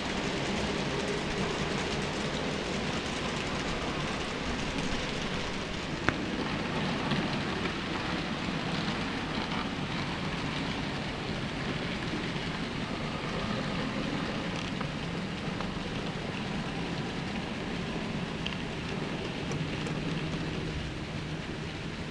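N-scale model trains running on the layout's track: a steady rushing rattle of small wheels on the rails, with one sharp click about six seconds in.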